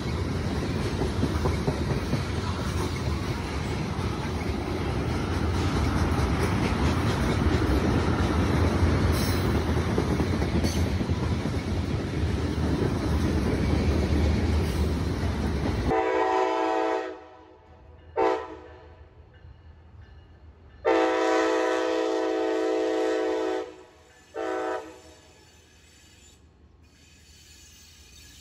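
A loaded freight train of tank cars rolling past: a steady rumble of steel wheels on rail with clickety-clack from the rail joints. About halfway through this cuts off abruptly, and a locomotive horn sounds in separate blasts: a blast that ends a second after the cut, a short toot, a long blast of about two and a half seconds and another short toot.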